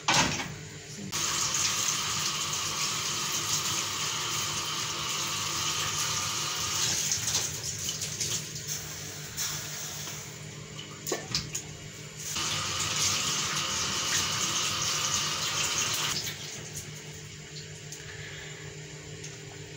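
Water from a kitchen tap running into a stainless steel sink in two spells, from about a second in until about seven seconds, and again from about twelve to sixteen seconds, while raw meat is rinsed under it. A steady low hum runs underneath.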